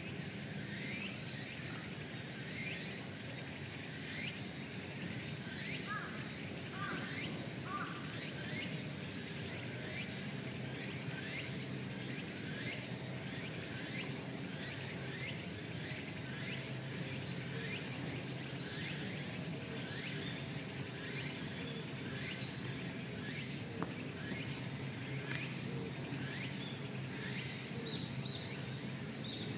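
Outdoor ambience with a steady low hum, over which a high, thin call repeats evenly about one and a half times a second, each call sweeping downward in pitch.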